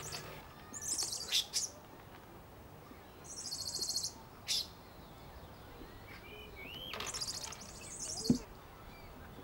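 Short, high-pitched chirping trills, four of them a few seconds apart, with a few lower chirps between, and two brief knocks.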